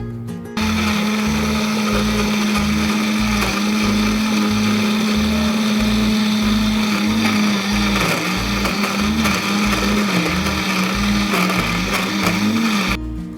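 Electric kitchen blender running, starting about half a second in and stopping just before the end; its motor hum is steady at first, then wavers up and down in pitch from about halfway through.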